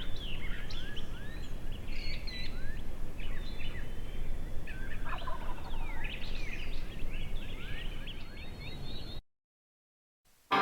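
A wild turkey gobbling among chirping songbirds, over a low rumble of wind. The sound cuts off to silence about nine seconds in.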